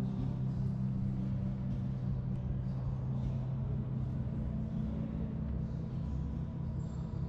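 A steady low droning hum, several held low tones with a rumble beneath, changing little throughout.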